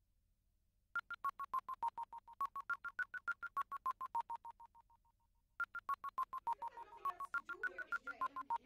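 A rapid run of short electronic beeps, about seven a second, stepping between a few pitches. It breaks off briefly past the middle, then resumes, with a lower wavering sound joining in near the end.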